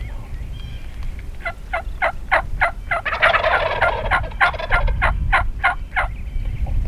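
Wild turkeys calling: a long, even series of short calls, about three a second, with a rattling gobble over it about three seconds in.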